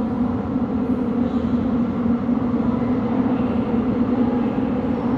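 Steady low rumble with a constant low hum in a subway station as a Seoul Subway Line 6 train approaches through the tunnel.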